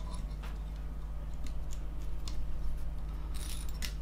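Scattered light clicks and small handling noises of fly-tying tools and thread at the vise, with a short cluster of brighter clicks about three and a half seconds in, over a steady low electrical hum.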